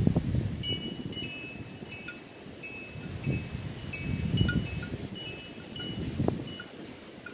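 Scattered short, high chiming notes at several pitches, over irregular low rumbling gusts of wind on the microphone.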